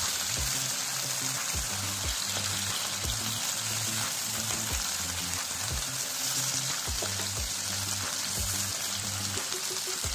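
Marinated chicken pieces sizzling in hot mustard oil on a flat iron tawa, a steady frying hiss. Background music with a steady beat of about two a second plays under it.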